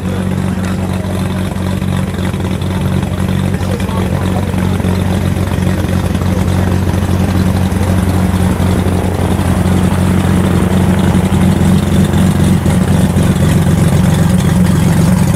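Boeing B-29 Superfortress's four radial engines droning steadily in flight, growing gradually louder as the bomber comes in low on its landing approach.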